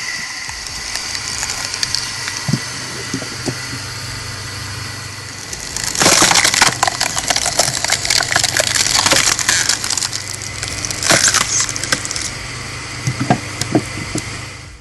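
Motor-driven spiral cone log splitter splitting a log over a steady motor hum. About six seconds in, the wood begins cracking and splintering loudly as the cone forces it apart, with a dense crackle for several seconds and a few more sharp cracks near the end.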